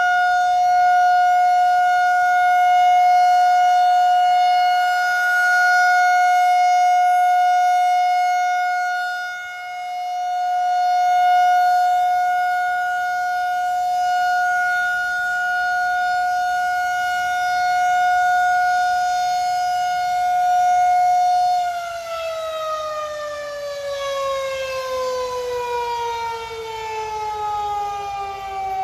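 Federal Signal 2001-SRN DC "Roundback" outdoor warning siren sounding its steady 750 Hz alert tone, waxing and waning in loudness. About 22 seconds in it shuts off and the tone falls steadily in pitch as the rotor winds down, the end of the 3-minute alert test.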